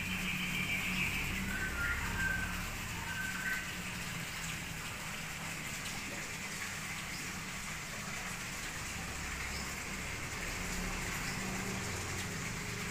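Steady rain-like hiss with a low hum beneath it. In the first three seconds or so, a few short whistled bird notes sound over it.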